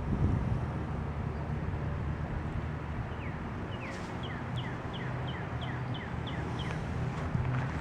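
A bird singing a run of short, quick down-slurred notes, about three a second, starting about three seconds in and stopping near the end, over a steady low rumble.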